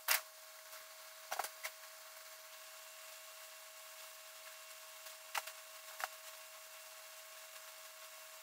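Faint steady hiss and a thin steady tone from a laptop's built-in microphone, with a sharp click at the very start and a few short, soft knocks and handling noises while a skirt is pulled on and adjusted.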